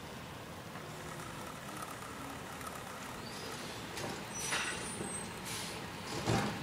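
Garbage truck running further down the street under a steady rushing noise, with short hissing bursts about four and a half and five and a half seconds in and a louder one just after six seconds.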